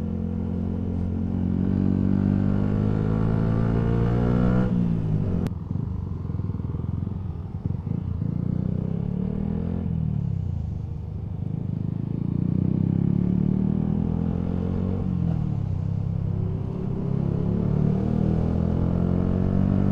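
Yamaha MT-125's single-cylinder 125cc engine through a Scorpion Serket full exhaust, riding along with the revs rising, then dropping sharply about five seconds in. The revs climb and fall again twice as the bike pulls on.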